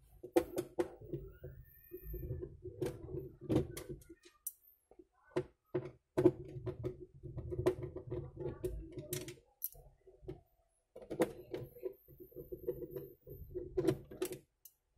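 Screws being driven out of the HP DeskJet GT 5821 scanner unit's plastic housing: stretches of a steady low buzz of one to three seconds each, with sharp clicks scattered through them and short pauses between.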